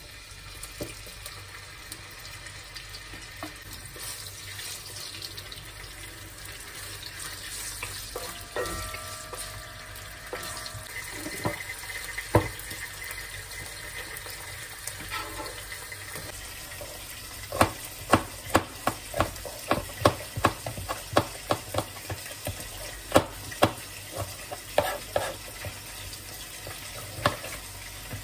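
Food sizzling as it fries in a wok over a gas flame. From about 17 seconds in, a knife chops on a cutting board in quick strokes, about three a second.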